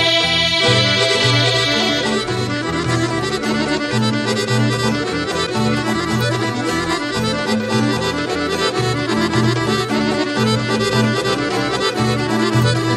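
Bulgarian folk horo dance music: a lively instrumental tune over a steady, evenly pulsing bass beat.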